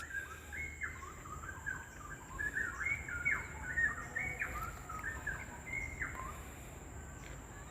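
A songbird singing a quick run of short, chirping notes, which stop about six and a half seconds in.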